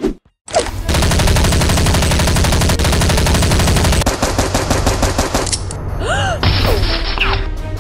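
Automatic gunfire sound effect: a rapid, even machine-gun burst starts about half a second in and runs for about five seconds. It is followed near the end by a couple of short rising-and-falling whistles.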